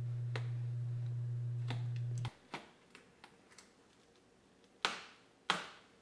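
Water shield being peeled back from a truck's inner door panel: small scattered clicks and crackles, then two sharper peeling pulls near the end. A steady low hum cuts off suddenly about two seconds in.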